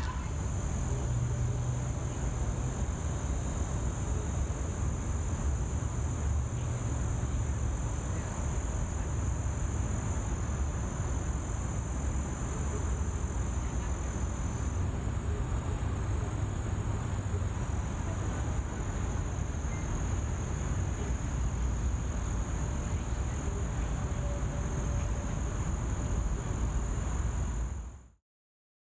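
Steady high-pitched insect trilling over a low city traffic rumble; both cut off abruptly near the end.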